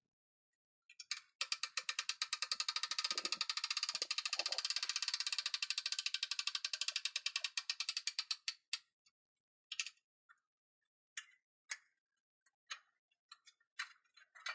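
Hand-cranked winch on a homemade mini forklift clicking its ratchet quickly and evenly for about seven seconds as the crank lowers the forks and a large crate. Then a few scattered clicks and knocks.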